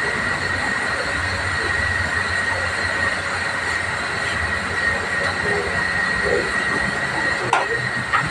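Gas torch flame hissing steadily as it heats the aluminium radiator tank around the leak, ahead of aluminium welding; a steady high whistle sits over the hiss, and two brief clicks come near the end.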